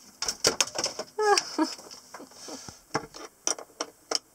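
Irregular clicks and light rattles of multimeter probe leads and battery cables being handled at a boat's battery box, with one short falling tone about a second in.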